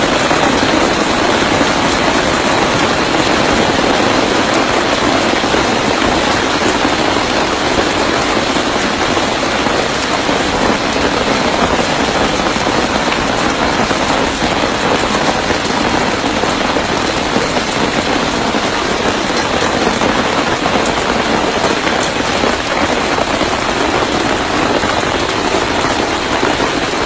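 Heavy rain pouring down and pattering on surfaces, steady throughout.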